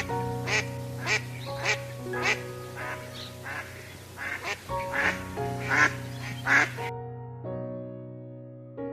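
A duck quacking over and over, a short call roughly every half-second, stopping about seven seconds in. Steady background music plays under the quacks and carries on alone after them.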